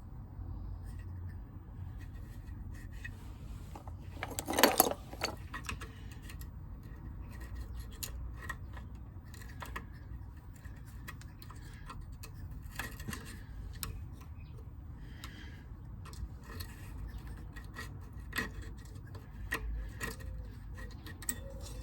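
Light scraping and scattered metal clicks of hand work on a motorcycle rear brake caliper as it is cleaned, with one louder metallic clatter about five seconds in.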